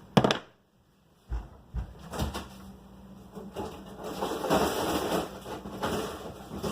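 Kitchen handling noises while fetching ice for a smoothie: a sharp click, two dull thumps, then a continuous rustling, rattling noise that grows louder near the end.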